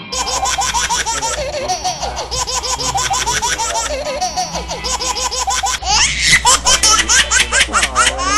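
Laughter sound effect: a long run of rhythmic ha-ha pulses, several a second, growing louder about six seconds in.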